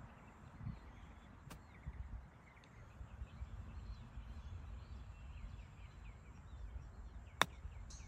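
A sand wedge striking a golf ball on a short chip shot: one sharp click near the end, over low wind noise and chirping birds.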